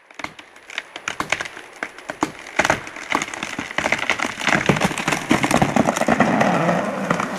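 A large tree trunk cracking and splintering as the saw cut gives way and the tree starts to fall. Scattered sharp cracks come faster and louder and run together into a dense crackle near the end.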